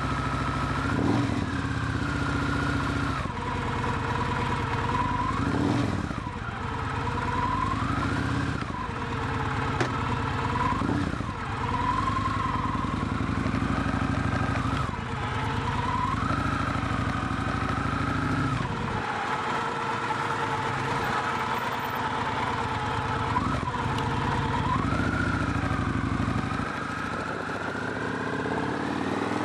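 Victory Hammer's V-twin engine under way, its note climbing and dropping back repeatedly as the bike accelerates through the gears. A little past the middle there is a stretch with less low rumble, then it pulls again.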